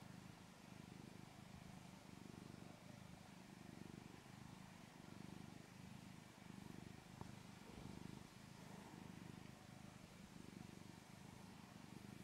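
Black-and-white domestic cat purring quietly while being stroked, a low purr that swells and fades with each breath, roughly every second and a half.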